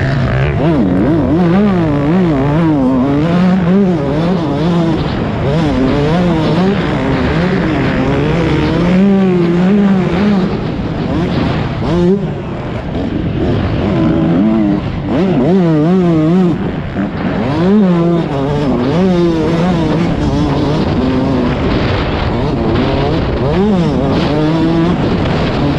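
Motocross bike engine heard from on board while racing, revving up and down over and over as the throttle is worked, with a short drop in level twice.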